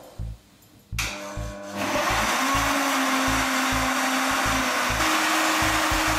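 Enpee high-speed blender switched on about a second in and running loud and steady, churning a thick load of leafy greens, fruit and frozen banana; its motor tone steps up in pitch about five seconds in.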